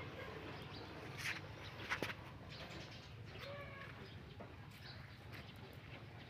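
Quiet outdoor background with a short bird call about three and a half seconds in. There are a couple of light knocks before it.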